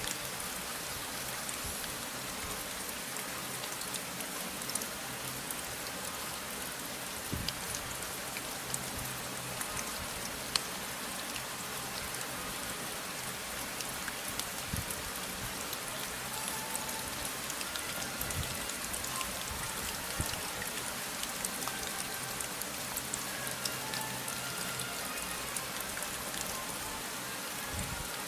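Steady rain: an even hiss of falling rain with many separate drops ticking on a surface.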